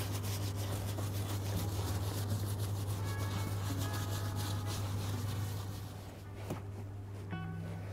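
Rapid scrubbing strokes on a leather steering wheel, working in interior cleaner, easing off about six seconds in.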